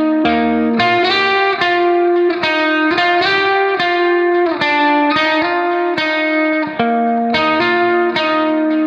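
Background music: a guitar picking a steady run of notes, with no singing.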